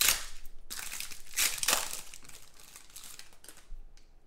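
Foil trading-card pack wrapper crinkling as it is torn open and peeled off by hand, in several quick rustling bursts over the first two seconds, then fading to faint rustling.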